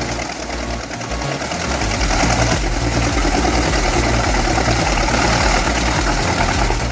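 Large engine-driven drum wood chipper running under load, a steady mechanical din with a fast, even pulse, getting louder about two seconds in.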